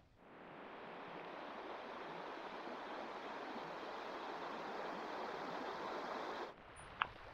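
Stream water rushing, a steady hiss that cuts off abruptly about six and a half seconds in, followed by two short clicks.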